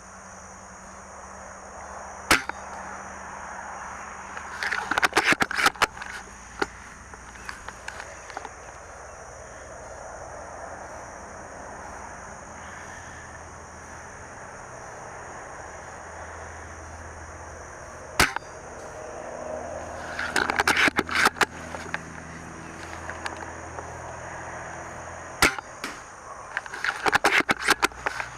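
Airsoft gunfire: three single sharp shots spread through the stretch, and three short bursts of rapid automatic fire, about 5, 20 and 27 seconds in.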